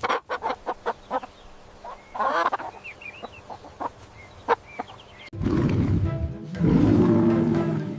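Chicken clucking in short, sharp calls, with a few higher calls around two seconds in. About five seconds in, a louder, low-pitched sound with several tones takes over.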